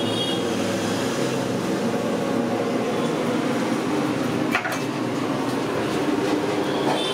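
Steady low mechanical drone with a brief sharp clack about four and a half seconds in.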